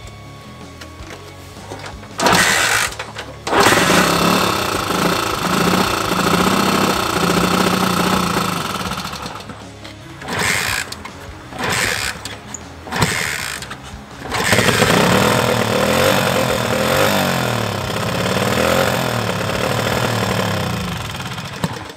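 A Honda CT200's freshly rebuilt single-cylinder pushrod engine is kick-started. It catches about two seconds in and runs, with the pitch rising and falling as the throttle is worked. Around the middle it dies, fires in a few short bursts on further kicks, then catches again and runs on. Music plays underneath.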